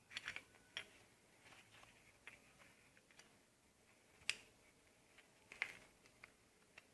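Faint, scattered small metal clicks and taps of a motorcycle rocker arm and its shaft being fitted into the camshaft holder by hand. The two clearest clicks come about four seconds in and about five and a half seconds in.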